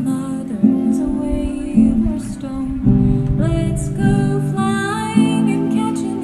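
Acoustic guitar music, strummed and picked, with the chord changing every second or so.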